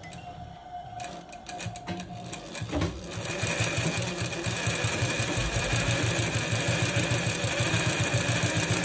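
Straight-stitch sewing machine running steadily, stitching a straight seam along a strip of fabric with a fast, even rhythm. It starts about three seconds in, after a few light clicks.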